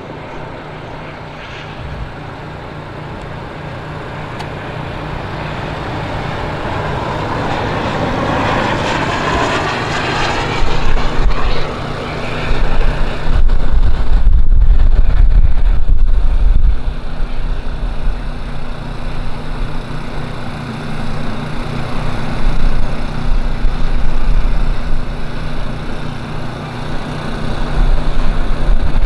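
Radio-controlled model jet aircraft flying overhead, its engine noise growing steadily louder over the first ten seconds or so as it closes in and passes. A heavy low rumble follows in the middle.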